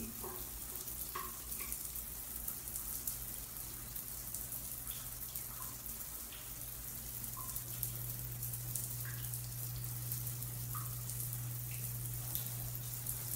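Shower running, its spray hissing steadily onto a tiled shower floor, with a steady low hum underneath that grows louder about halfway through.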